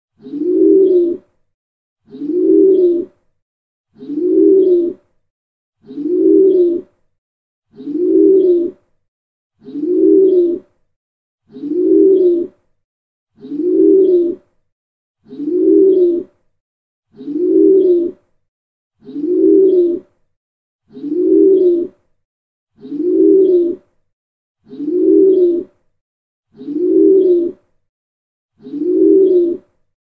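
A pigeon cooing: the same low, roughly one-second coo repeated at an even pace about every two seconds, with silence between each call.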